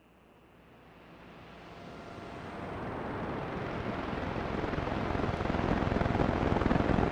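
Intro sound-effect riser: a deep rush of noise that swells steadily louder and grows brighter as it builds.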